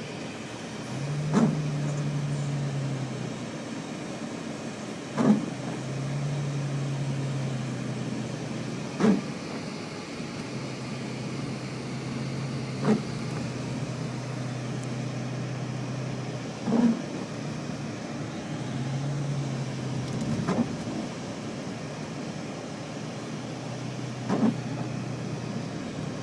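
Motor vehicle running with a steady low hum that shifts slightly in pitch, and a sharp thump about every four seconds.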